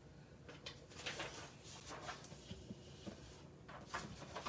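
Faint rustling and a few light taps of a large folded sheet of paper being handled and opened out.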